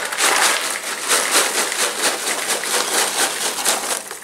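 Popped microwave popcorn being poured from its bag into a plastic bowl: a dense, steady patter of popcorn spilling and landing, with the bag rustling.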